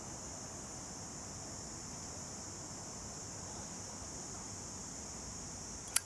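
A steady high hiss, then a single sharp metallic click near the end as the Zippo Armor sterling silver lighter's lid snaps shut.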